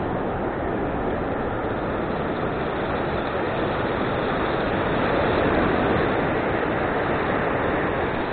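Ocean surf washing on the beach: a steady rush of noise that swells a little just past halfway as a wave comes in.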